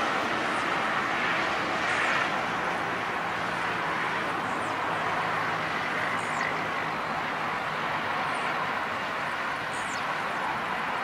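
Jet engines of a FedEx Boeing 767-300F freighter, General Electric CF6 turbofans, heard as a steady rush during its landing and rollout, loudest about two seconds in and then slowly easing as the aircraft moves away down the runway. A few short, high chirps sound over it.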